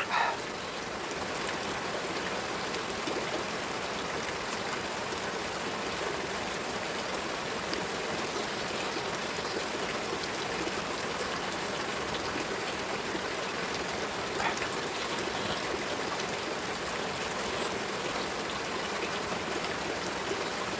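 A steady, even hiss like rain or running water, with no clear changes.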